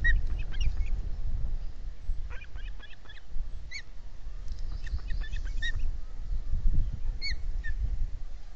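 Ospreys calling: short, high chirps, some single and some in quick runs, over a steady low wind rumble on the microphone.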